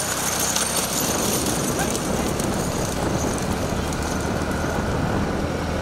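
Steady rumbling, rattling noise of a vehicle on the move.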